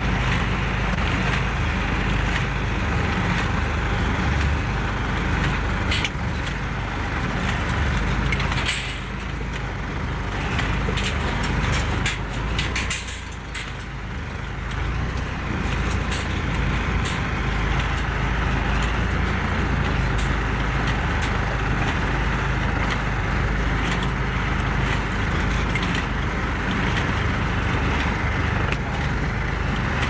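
John Deere tractor engine running under load while pulling a John Deere 214T small square baler that is baling hay, with scattered clicks and knocks from the baler. It dips briefly in loudness about halfway through.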